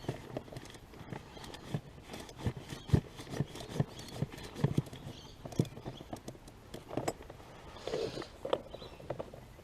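Irregular clicks and knocks from hands working screws and plastic body panels with a ratcheting screwdriver, a few sharp taps a second with brief pauses.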